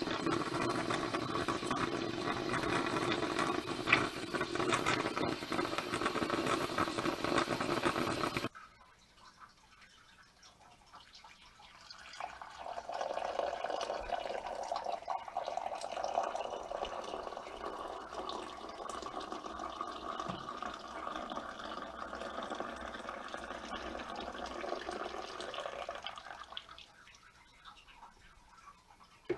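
Steam espresso machine brewing into a glass carafe, hissing and sputtering for about eight seconds, then cutting off suddenly. A few seconds later, coffee is poured from the carafe into a mug in a steady stream for about fourteen seconds.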